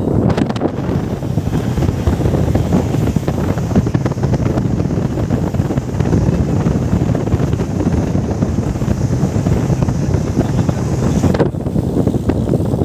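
Wind buffeting the microphone aboard a speedboat under way, over the steady noise of the boat running through the water. The higher hiss cuts out abruptly near the end while the low rumble carries on.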